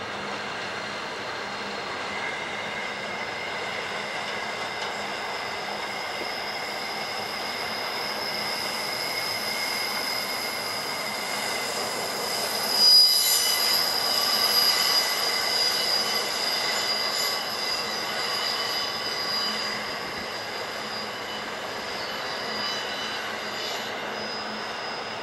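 Container wagons of a long intermodal freight train rolling past on a curve, their wheels squealing in several steady high-pitched tones. The squeal swells to its loudest about halfway through, then eases.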